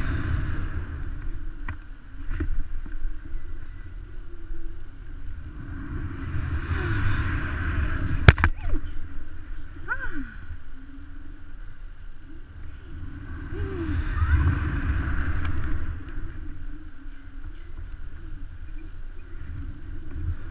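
Wind rushing over a GoPro Hero 3's microphone on a pendulum rope swing, swelling and fading in surges about every seven seconds as the swing goes back and forth. A single sharp click about eight seconds in.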